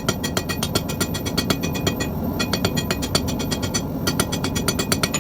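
Hand hammer striking hot steel on an anvil in quick, even blows, about five or six a second, each with a bright metallic ring, in three runs with short pauses between; the smith is beveling the corners of a forged dragon's snout.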